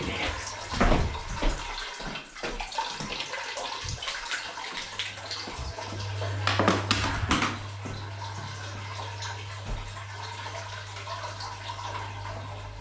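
Water running out of an opened drain-off on an old tank, a steady rush with a low hum under it. Sharp knocks and clicks of tools and pipework come in the first second or so and again about halfway through.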